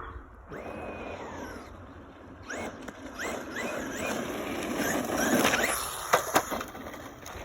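Traxxas Rustler RC truck's electric motor whining up in quick rising bursts as the truck accelerates again and again, with the rush of its tyres over the ground. A few sharp knocks come a little after 6 seconds.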